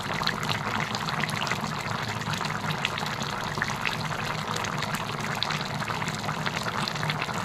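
Fish curry bubbling in a wok: a steady bubbling of many small pops, with a low steady hum beneath.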